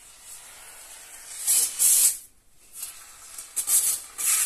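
Pistol-grade polyurethane foam adhesive gun dispensing in short spurts of hiss as its nearly empty can runs out: two spurts about a second and a half in, then more near the end.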